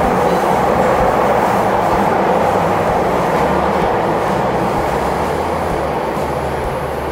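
Cabin noise of a moving Rinkai Line electric commuter train, heard from inside the carriage: a steady rumble of wheels and running gear that eases slightly near the end.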